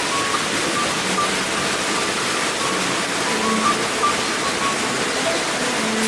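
Steady rush of falling water, with short soft musical notes at several pitches over it.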